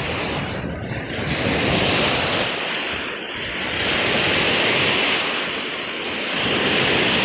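Small lake waves washing and breaking on the shore, the surf swelling louder about three times, with wind noise on the microphone.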